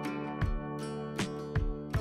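Background instrumental music with held notes and sharp percussive hits.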